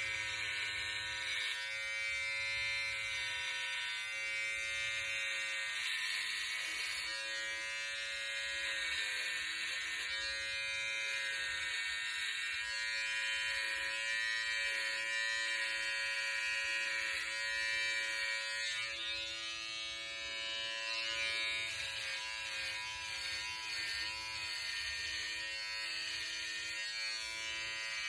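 Electric hair clippers buzzing steadily as they shave close to the scalp, the rasp of the blades through the hair changing in texture now and then as the clipper is moved over the head.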